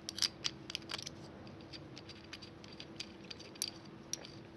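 Light metallic clicks and rattles of a hand pop rivet gun's nosepiece adapter and its spanner being handled while the adapter is changed. A quick cluster of sharp clicks comes in the first second, then scattered single clicks, over a faint steady hum.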